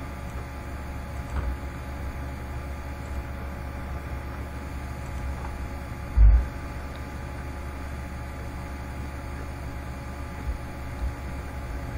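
Steady low electrical hum with a background hiss from the recording setup, broken once about halfway through by a single dull low thump.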